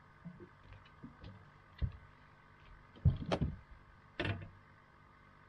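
A few scattered knocks and clicks, loudest in a quick cluster about three seconds in, with another about a second later.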